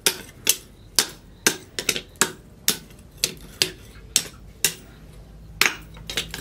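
Blacksmith's hand hammer striking a plough-disc steel knife blank held in tongs on a steel anvil: sharp metal-on-metal clangs with a short ring, about two blows a second, with a brief pause near the end.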